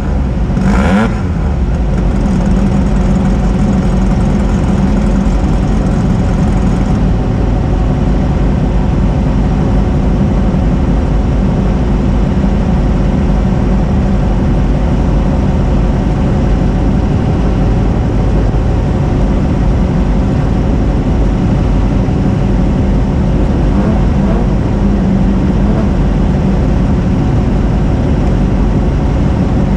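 Car engine and road noise heard from inside a moving car, a steady loud drone, with one brief knock about a second in.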